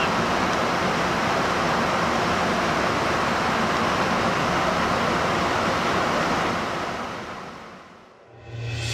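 Steady rush of airflow and engine noise heard inside a KC-135 tanker's boom pod in flight, fading out over the last two seconds or so. Music starts right at the end.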